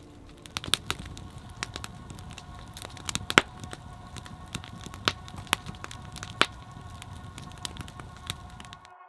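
Log campfire crackling, with frequent sharp, irregular pops and snaps from the burning wood; it cuts off abruptly near the end.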